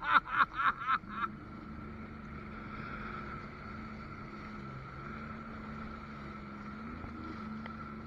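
Sea-Doo personal watercraft engine and jet pump running at a steady speed under way, heard from the rider's seat as a steady low hum over water noise. In the first second, a rapid run of about six loud short bursts.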